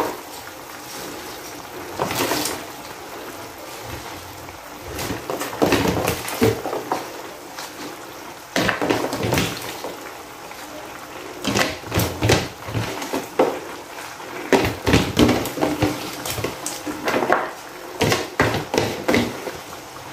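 Chopped pechay (bok choy) leaves dropped by the handful into a pan of simmering chicken and squash: irregular rustling and soft knocks of the leaves and the pan over a steady low hiss.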